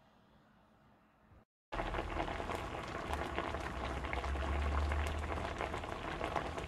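Food sizzling in a frying pan, cutting in abruptly about a second and a half in after faint room tone, with a low hum underneath.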